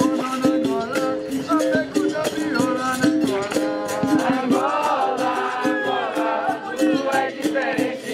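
Capoeira Angola bateria playing: berimbaus, pandeiros and an atabaque drum keeping a steady rhythm with a rattle shaking in time, while voices sing over it.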